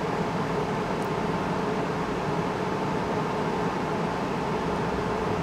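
Steady mechanical hum with a constant hiss, unchanging throughout.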